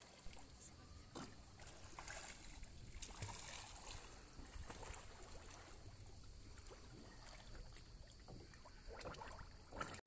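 Faint water sounds around a small boat on a calm lake: soft, irregular splashes and lapping against the hull.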